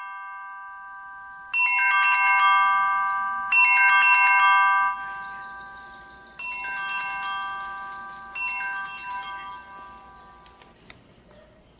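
Smartphone alarm ringing: a chiming, marimba-like melody played in repeated phrases, starting softly and then much louder, stopping near the end.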